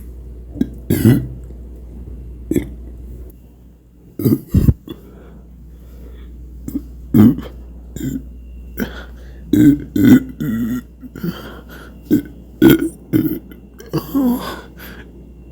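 A person burping over and over: more than a dozen short burps, one after another with brief gaps, some coming in quick pairs.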